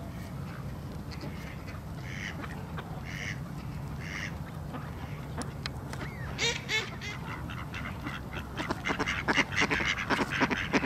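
A flock of mallard ducks calling: a few single calls about a second apart, then from about six seconds in many ducks calling at once in quick succession, growing louder toward the end.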